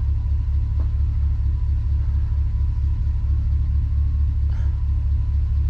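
Pickup truck engine idling: a steady, low, evenly pulsing rumble.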